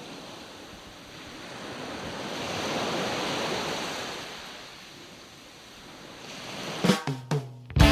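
Surf-like wash of noise that swells to a peak about three seconds in and then fades away, followed by a few short sharp bursts near the end.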